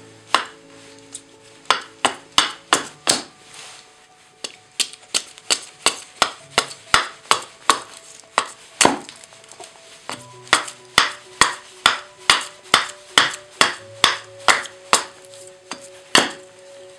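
A hatchet chopping into an ash branch held on a wooden chopping block: a long run of sharp chops, about two a second, with brief pauses twice. Light background music plays underneath.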